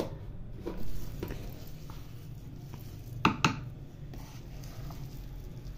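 A spoon stirring and mashing thick chicken and chana dal kabab mixture in a clay pot, scraping and knocking against the pot, with two sharper knocks in quick succession a little past the middle.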